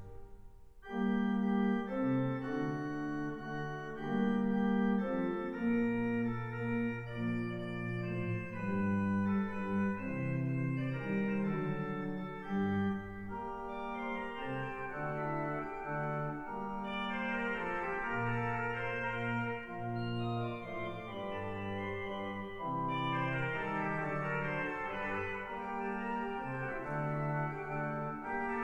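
C.B. Fisk concert pipe organ "Lucy" playing a classical piece in several voices. A held chord breaks off right at the start, and after a short pause the organ comes back in about a second later with moving lines over sustained low notes.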